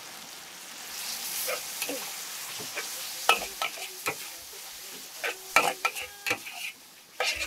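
Food frying in a wok with a high sizzle, then a metal spatula clanking and scraping against the wok over and over as the noodles are stirred.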